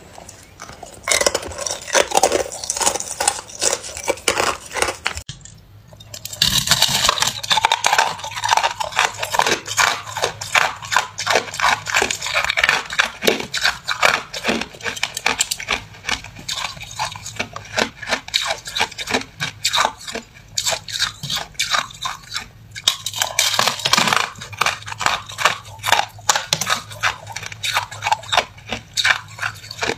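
Ice being bitten and crunched between the teeth: first a hard clear ice cube, then chunks of a frozen block of white crushed ice, in a dense run of crisp crunches with a short break about five or six seconds in.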